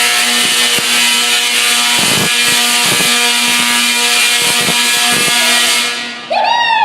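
Large Tesla coil firing artificial lightning: a loud, harsh buzzing crackle over a steady hum, which cuts off suddenly about six seconds in. The crowd then whoops and shouts.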